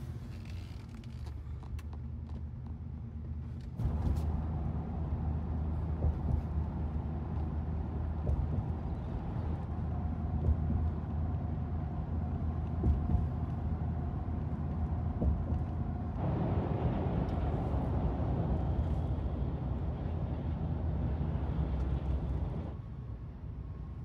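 Road and engine noise heard inside a pickup truck's cab while driving: a steady low hum. It steps louder about four seconds in, turns hissier from about sixteen seconds, and drops back near the end.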